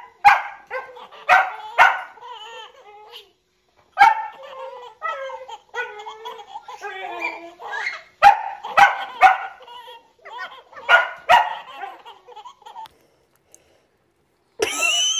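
Two babies laughing in bursts while a dog barks sharply about ten times, each bark answered by giggles. The sound stops about 13 seconds in.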